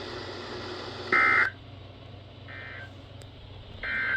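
NOAA Weather Radio EAS End-of-Message data bursts: three short, harsh buzzing digital bursts about 1.3 seconds apart, the middle one fainter, over steady radio hiss and hum. They signal the end of the alert broadcast.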